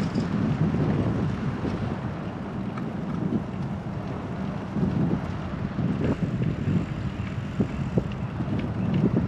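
Wind buffeting the microphone while cycling, over a steady rumble of road and tyre noise, with a few sharp clicks and rattles.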